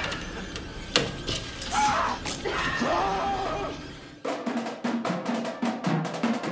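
A sharp bang about a second in, followed by yelling voices. About four seconds in, a marching drumline starts playing fast snare and tenor drum strokes.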